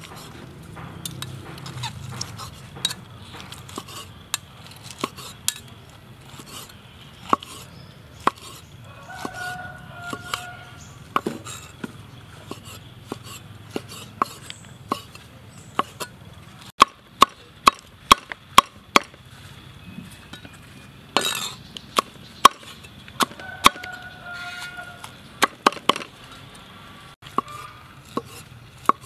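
Steel cleaver chopping cooked beef tongue on a wooden chopping board: sharp knocks of the blade on the wood at irregular intervals, with a quicker run of chops in the middle.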